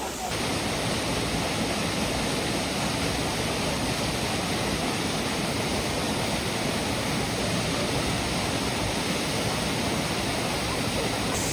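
Steady, even rush of a waterfall's falling water, stepping up in level just after the start and then holding constant.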